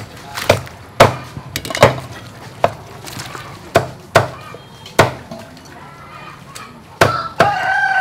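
A cleaver chopping on a wooden board in irregular strokes, roughly one or two a second. A rooster crows near the end.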